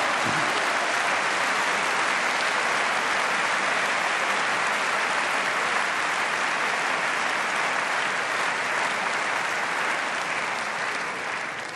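A large audience applauding steadily, fading away near the end.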